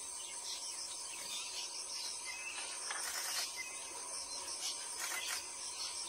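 Insects chirring in a steady, high, evenly pulsing drone.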